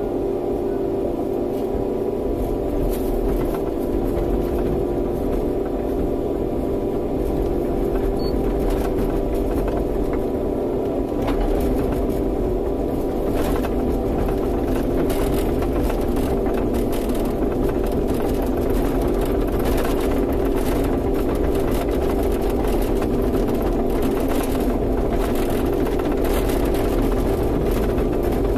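Kobelco hydraulic excavator's diesel engine running steadily, heard from inside the operator's cab, with scattered clicks and knocks.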